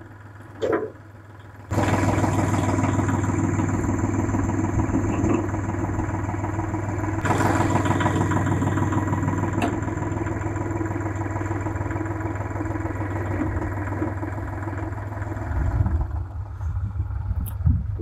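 Kubota compact tractor's diesel engine running: it jumps sharply to a higher, steady speed about two seconds in and holds there while the loader hydraulics lower the plow, then eases off and runs unevenly near the end.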